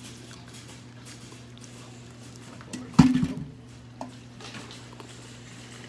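Steady low electrical hum from the aquarium racks' pumps and lights. One sudden loud sharp sound, lasting about half a second, comes about three seconds in, with a smaller click about a second later.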